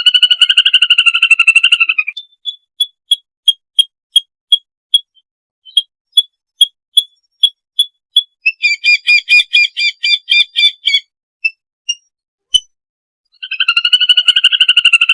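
Lesser whistling ducks calling: a rapid run of whistled notes at the start, then short single whistles at about three a second, a fast chattering passage in the middle, and the rapid whistled run again near the end.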